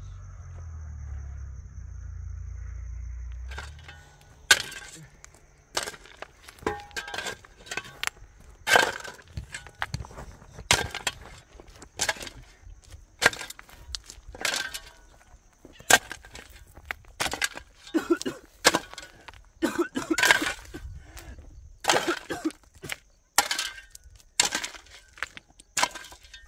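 A digging tool striking hard, stony ground over and over, roughly once a second and sometimes twice in quick succession, each blow a sharp crack. A low steady rumble fills the first few seconds before the strikes begin.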